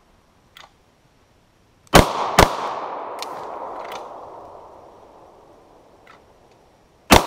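Three 9mm pistol shots from a Beretta 92FS: two in quick succession about two seconds in, then a third near the end. Each shot echoes and fades slowly, with a few faint ticks in between.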